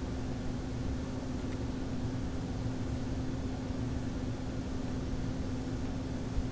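Steady background hum and hiss with an unchanging low tone: room tone picked up by the microphone.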